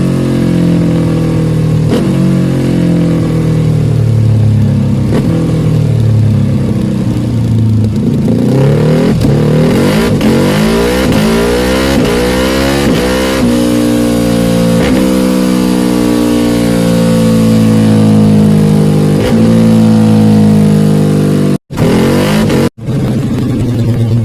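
Ducati Panigale R sport bike engine through an Akrapovic full titanium exhaust, running hard on a dyno, its pitch rising and falling again and again under load. The sound drops out abruptly twice, for a moment each, near the end.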